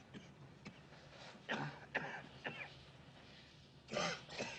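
A man's coughing, acted as a tuberculosis cough: a short fit of coughs about a second and a half in, and another near the end.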